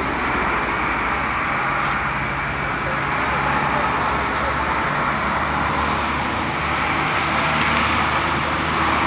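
Steady city traffic noise: a continuous wash of road traffic with a faint low hum running under it.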